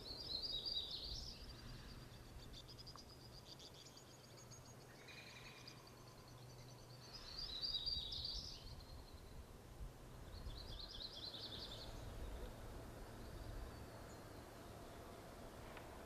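Songbirds singing in short, fast trilling phrases: three louder bursts, with fainter high notes between them, over a faint steady outdoor background noise.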